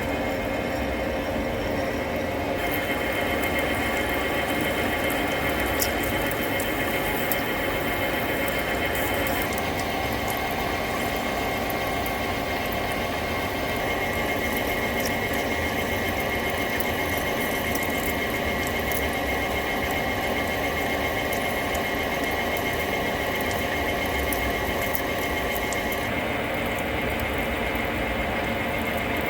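A long 8.5 mm parabolic drill cutting a deep grease hole into the end of a steel bulldozer pin, the machine running steadily with a high squealing tone. The sound shifts a few times as the drill works deeper.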